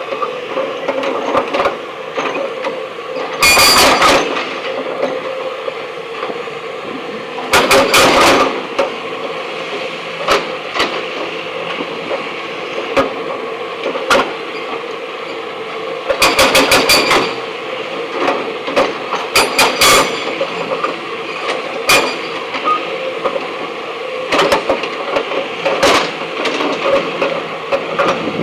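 Backhoe loader breaking stone: a steady machine hum with several bursts of rapid, hard knocking, the loudest a few seconds in, again at about eight seconds, and twice more past the middle.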